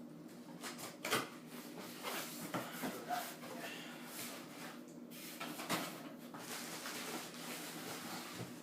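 Cardboard box and packaging being handled and opened: scattered rustles, scrapes and knocks, the sharpest about a second in and near six seconds, over a faint steady hum.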